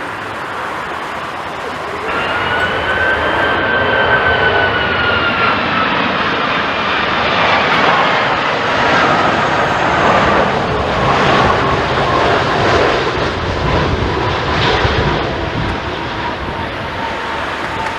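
Jet airliner flying low past, its engines making a steady roar with a high turbine whine that glides slowly down in pitch as it passes.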